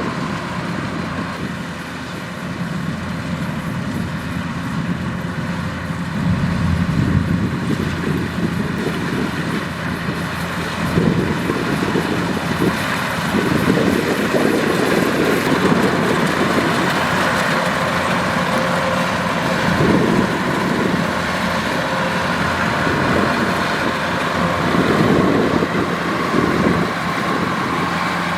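Kubota DC-105X combine harvester running steadily while harvesting rice: diesel engine and threshing machinery working together, louder in surges every few seconds.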